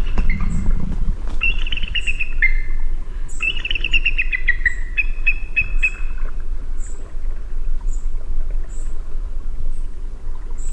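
Eagle calling: two runs of rapid, high chittering notes that slide down in pitch, the first about a second and a half in and the second about three and a half seconds in, trailing off by about six seconds. Faint short high pips repeat at an even pace in the background over a low rumble.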